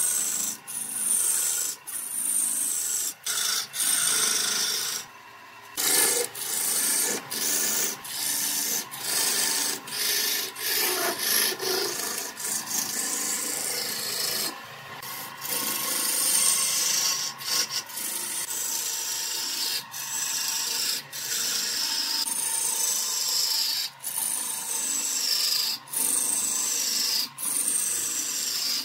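A gouge cutting a wooden cylinder spinning on a wood lathe, sending off a stream of shavings. The cut comes in repeated strokes about once a second, each with a high hiss that slides down in pitch. The cutting stops for about a second twice.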